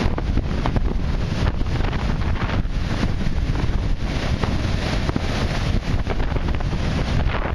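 Storm wind buffeting the microphone with heavy, unbroken noise, over heavy storm surf breaking and washing around the pier pilings.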